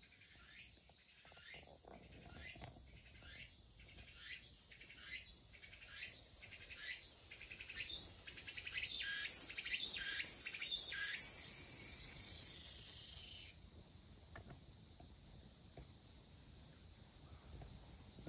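An insect singing outdoors: a series of high buzzing pulses, under two a second, grows louder and quicker. About two thirds of the way through it merges into one continuous buzz, then stops abruptly.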